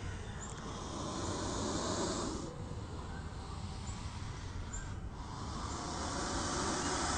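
Cobra hissing in two long hisses, each about two and a half seconds, one at the start and another from about five seconds in, with a lower, rougher breathy sound between them.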